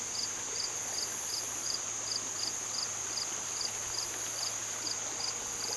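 Crickets chirping in a steady, even rhythm of about two or three chirps a second, over a continuous high insect trill.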